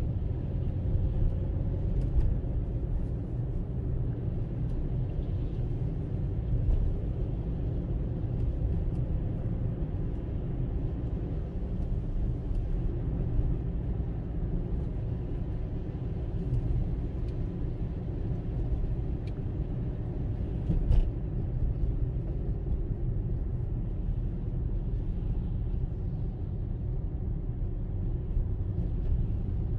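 Steady low rumble of a car driving on a road, engine and tyre noise together, with a few light knocks, the sharpest about two-thirds of the way through.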